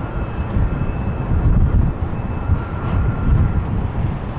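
Jet engines of an Airbus A330 airliner on short final, just before touchdown: a steady heavy rumble with a faint high engine whine drifting in and out.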